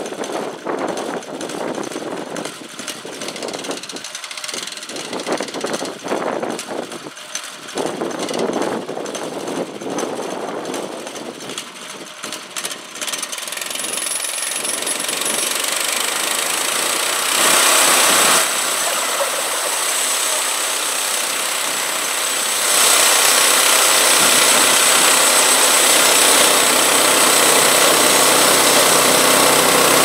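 The small gas engine of a portable bandsaw mill runs unevenly at first. About halfway through a steady, louder hiss of the band blade sawing into the log builds up, and it steps up again to its loudest past two-thirds of the way.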